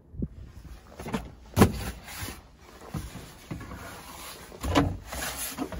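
Irregular knocks and rubbery scraping as the rubber floor mat in a VAZ-2107's trunk is handled and lifted. The sharpest knock comes about one and a half seconds in.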